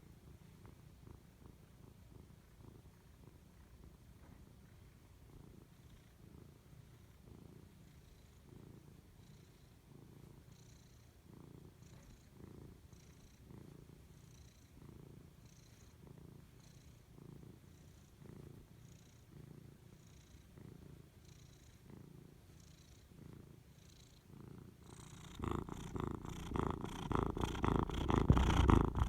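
Savannah cat purring, the purr swelling and fading with each breath. It becomes much louder near the end, as if right against the microphone.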